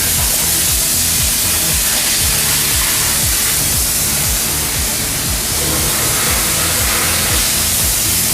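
Loud music playing, with a steady thumping bass beat over a constant high hiss.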